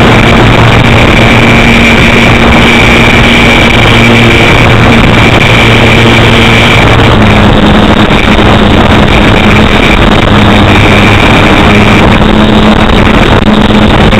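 Electric motor and propeller of an RC model Super Cub, heard from a camera on the plane in flight: a loud, steady drone with wind rush over the microphone. Its pitch shifts a little about seven seconds in.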